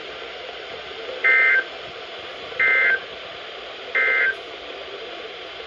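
Three short bursts of NOAA Weather Radio SAME digital data tones, a warbling buzz each about a third of a second long and a little over a second apart, over steady radio hiss. They are the end-of-message code that closes an emergency alert broadcast.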